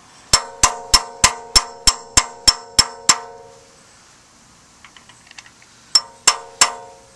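Hammer tapping a steel socket that drives a pilot bearing into the back of a Ford 302 V8's crankshaft. There are about ten ringing metallic strikes at roughly three a second, a pause of nearly three seconds, then three more strikes near the end.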